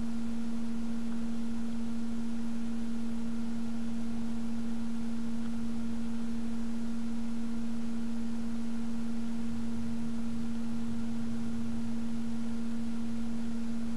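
A steady, unchanging hum at one low-mid pitch with faint higher overtones, like an electrical or recording-chain tone; no other distinct sound stands out.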